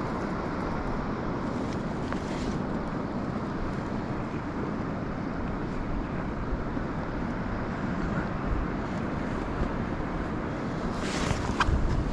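Steady wind rumbling on the microphone over open sea water, with a rustle and a few low knocks about a second before the end.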